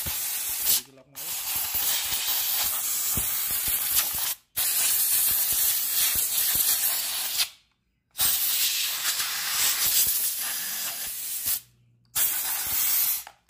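Air-compressor blow gun hissing in five blasts, each one to four seconds long with short breaks between, blowing sawdust and oily grime out of a chainsaw's body.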